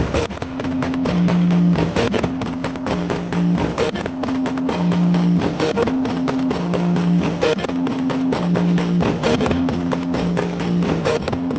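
Music played through a large truck-mounted sound-horeg speaker system: a plucked-string melody of held notes over fast, steady drum hits.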